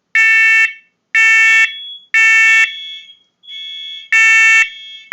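First Alert wireless smoke and carbon monoxide alarm sounding its test: loud, shrill half-second beeps in the three-beep smoke-alarm pattern (three beeps a second apart, a pause, then the next group begins). Fainter beeps from the other interconnected units elsewhere in the house trail each beep slightly out of step and sound during the pause.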